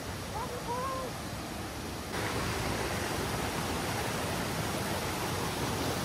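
Waterfall's rushing water, a steady even roar that jumps suddenly louder about two seconds in and then holds.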